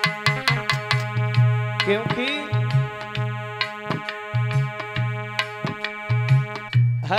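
Instrumental interlude of a live Hindi bhajan: a held melody with sustained chords over quick hand-drum strokes and repeated deep bass thumps.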